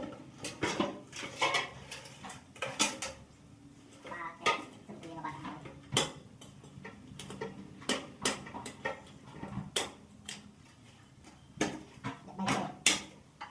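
Irregular clinks and knocks of a knife and the carcass against a metal basin while a plucked goose is cut open.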